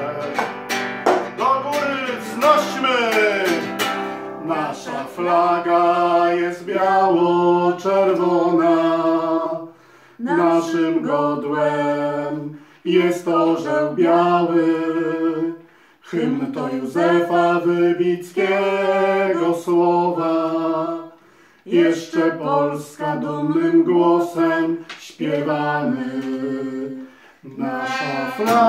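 A Polish song sung to a strummed classical guitar, in phrases broken by short pauses.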